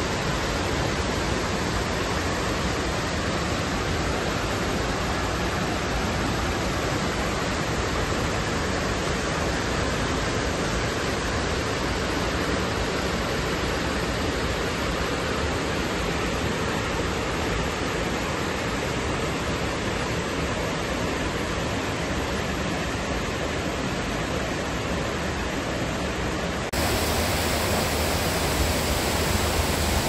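Mountain stream rushing over a low weir and rocky cascades: a steady, even rush of water. About 27 s in it changes abruptly to a slightly louder, fuller rush.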